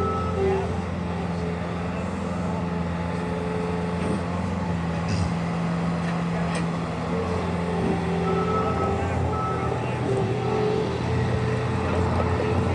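A 2023 Bobcat S76 skid steer's 74 hp turbo diesel runs steadily. Its backup alarm beeps right at the start, stops, then beeps again from a little past halfway on.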